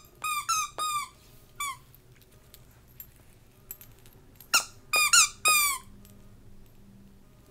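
A dog chewing a squeaky toy, the squeaker going off in two runs: four quick squeaks right at the start, one more a moment later, then another three or four about four and a half seconds in. Each squeak drops a little in pitch.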